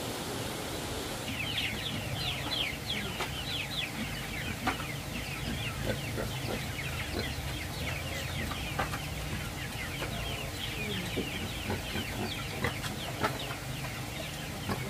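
Chicks peeping nonstop: many short, falling high cheeps that start about a second in, with an occasional louder call among them.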